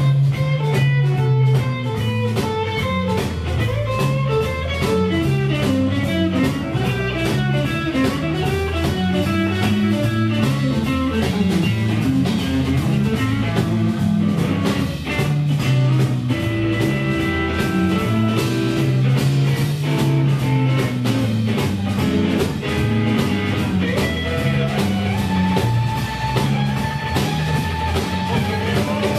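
Live blues band playing an instrumental passage: an electric guitar plays lead lines over bass guitar and a drum kit keeping a steady beat. A few held notes come near the end.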